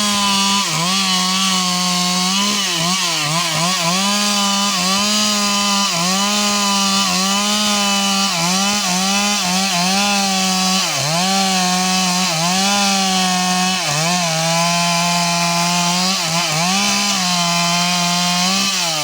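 Two-stroke chainsaw running at high revs while cutting wood. The engine note sags and recovers over and over as the chain bites. At the very end the throttle is released and the revs fall away.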